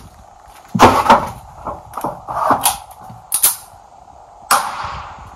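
A run of sharp clicks and knocks of handling noise, about eight in all. The loudest come about a second in, and the last, near the end, has a short ringing tail.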